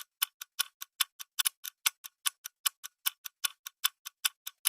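Countdown timer sound effect: a clock ticking fast and evenly, about five ticks a second, marking the seconds left to answer a quiz question.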